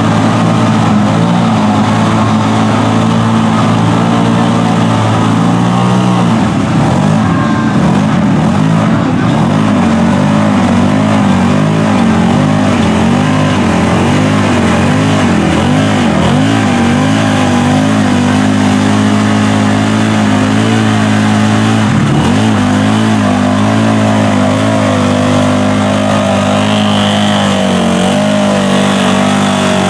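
Engine of a mud buggy on tractor-tread tires held at high revs as it churns through a deep mud pit. The note dips briefly about six seconds in and again near twenty-two seconds.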